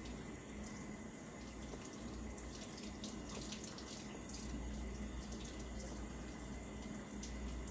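Tap water running steadily into a sink while a skinned quail carcass is rubbed clean by hand under the stream, with small splashes from the hands and the bird.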